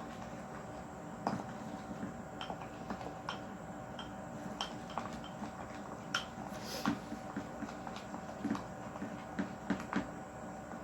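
Spatula stirring slime in a container, knocking and scraping against its sides in irregular light clicks and taps, with a faint squish of the slime.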